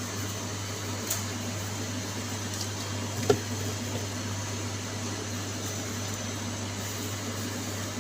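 Steady low mechanical hum of sandwich-counter equipment under a faint hiss, with one sharp click a little over three seconds in and a smaller one about a second in.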